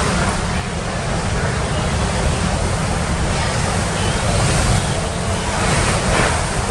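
Hurricane wind blowing through a building whose doors have blown out and windows are broken: a loud, steady rush with a low rumble of wind buffeting the microphone, swelling slightly near the end.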